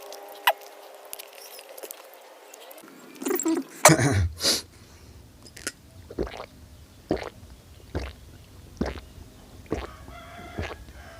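Close-up eating sounds: chewing and lip smacks coming about once a second, with a couple of louder mouth noises about four seconds in. A short pitched call sounds near the end.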